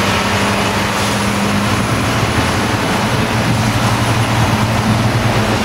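Off-road truck's diesel engine running steadily under load as the truck crawls through deep mud, with a steady low hum.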